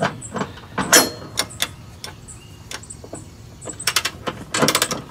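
Large ratchet wrench turning a mower blade bolt under a riding mower deck. A few separate metal clicks and knocks come first, the loudest about a second in; from about four seconds in come quick ratcheting clicks as the bolt is run up tight.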